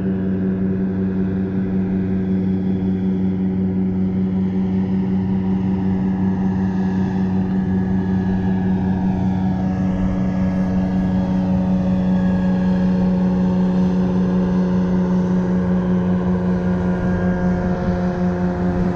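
Airboat engine and propeller droning steadily at an even pitch, a little louder around the middle of the stretch.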